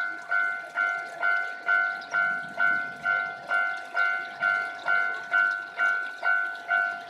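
Railway level-crossing warning bell ringing, one pitched tone struck a little over twice a second with each stroke fading before the next: the signal that a train is approaching.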